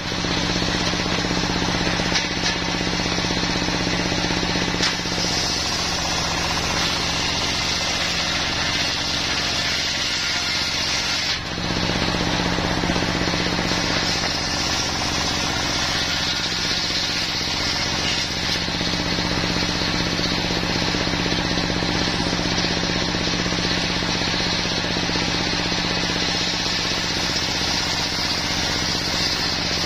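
Mobile circular-saw sawmill driven by a single-cylinder stationary diesel engine, running steadily while its blade rips a wadang log lengthways: a constant engine drone under the hiss and whine of the blade in the wood, with a brief dip about eleven seconds in.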